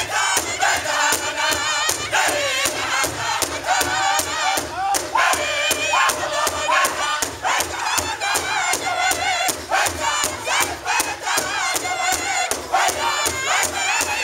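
Powwow drum group singing high-pitched in unison over a large shared drum, struck together with drumsticks in a fast, even beat.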